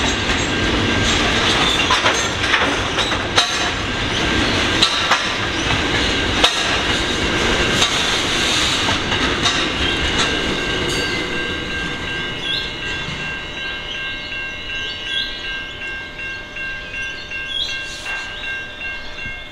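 Freight train wagons rolling past, wheels clacking over rail joints. The sound fades gradually through the second half as the train moves away, leaving a few steady high-pitched tones.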